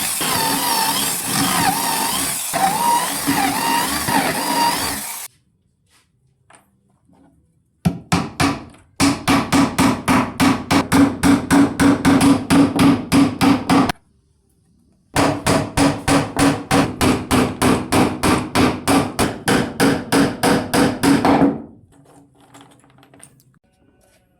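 A power tool whirring for about five seconds, then two runs of rapid, evenly spaced hammering strikes, about five a second, each lasting several seconds, as parts of a wooden door are assembled.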